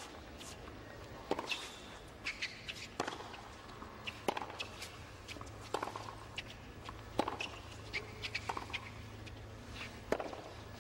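Tennis rally on a hard court: racket strikes and ball bounces, the loudest hits coming about every one and a half seconds.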